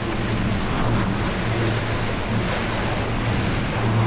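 Motorboat's engine running steadily with a low hum while underway, mixed with a rush of wind on the microphone and water passing the hull.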